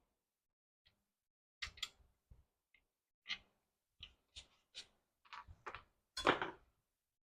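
Irregular short clicks and knocks of metal parts and tools being handled while the rear hub-motor wheel comes off an e-bike. The loudest, a longer clattering knock, comes near the end.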